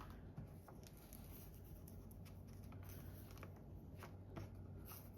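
Faint paper handling: a few light taps and rustles of card and paper being pressed and glued down.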